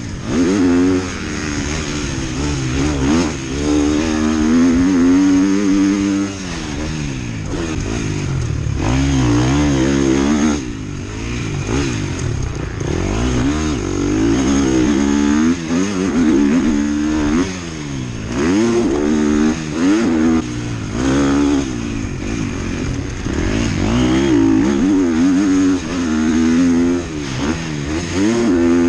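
Motocross dirt bike engine under hard racing throttle, its pitch climbing and falling over and over as the rider revs through the gears and shuts off the throttle, heard from the rider's helmet camera.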